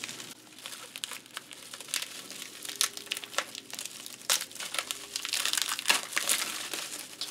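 Plastic bubble wrap crinkling and crackling as hands pull it off a wrapped paint palette, in irregular bursts that get busier in the second half.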